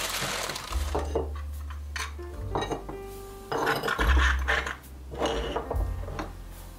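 Newspaper rustling as it is unwrapped from pottery, then kohiki stoneware cups and saucers clinking and knocking as they are set down on a wooden table, several separate clinks. Background music with a bass line plays under it.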